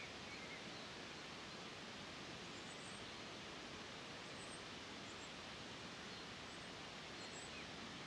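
Outdoor nature ambience: a soft, steady rushing hiss with a few faint, brief, high bird chirps scattered through it.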